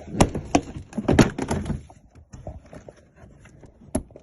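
Range Rover Evoque rear door trim panel being pulled off its plastic retaining clips: a quick run of sharp clicks and knocks in the first two seconds, then a single knock near the end.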